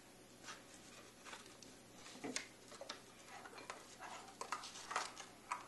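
Metal spoon stirring a liquid gelatin mixture in a glass bowl: faint, irregular light clicks and scrapes of metal against glass, coming more often in the second half.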